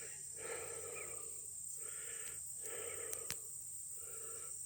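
A man breathing hard and out of breath after walking in the heat, each breath in and out about a second apart.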